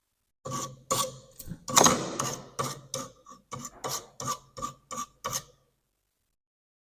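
A quick, uneven series of about a dozen sharp metallic taps and clicks from small tools at the soldering bench, some with a brief ring, stopping about five and a half seconds in.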